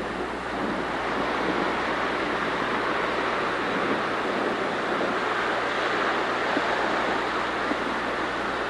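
Ocean surf washing steadily, with wind.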